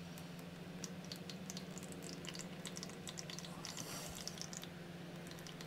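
Faint irregular drips and trickling of liquid running from a lawnmower's disconnected fuel line into a small plastic tub, over a low steady hum. The liquid is water rather than petrol, a sign of water in the fuel tank.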